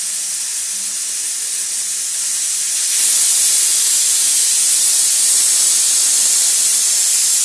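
Aluminium pressure cooker whistling: its weight valve lifts and steam escapes in a loud, steady hiss that grows louder about three seconds in. This is the whistle that signals the cooker has come up to pressure and the rasgulla are done.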